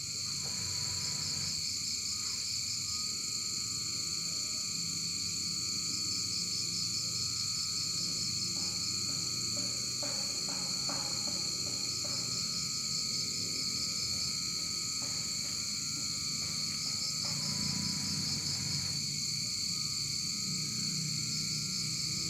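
Steady, high-pitched chorus of night insects such as crickets, with a fast pulsing chirp running through it and a faint thin whistle-like tone underneath.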